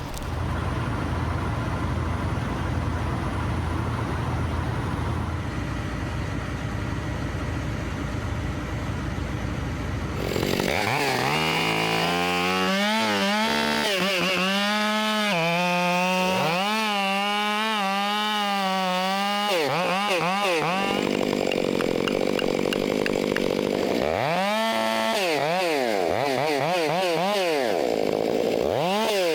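A steady low engine rumble for about ten seconds. Then a chainsaw starts revving, its pitch rising and falling again and again as it is throttled up and down while cutting wood.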